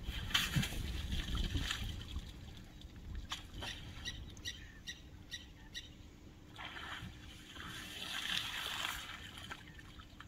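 African bush elephants wading and drinking in a shallow waterhole: water splashing and trickling in two spells, with a run of short ticks in the middle.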